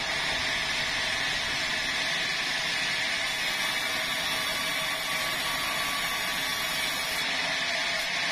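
Sawmill saw machine running steadily: a constant whine over a noisy hum, with no break or change.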